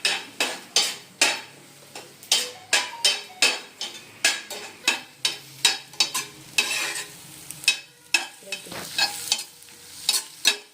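A spatula stirring and scraping in a frying pan with rapid clacks against the metal, a few a second, while an egg and onion stir-fry (muttai poriyal) sizzles.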